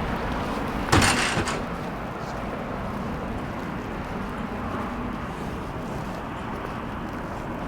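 City street ambience with a steady rush of noise, broken about a second in by a sudden loud noise that dies away over about half a second.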